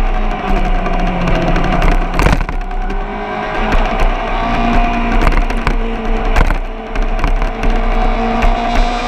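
Car engine running hard at speed. Its pitch sags over the first couple of seconds and then climbs slowly, with several sharp knocks over it.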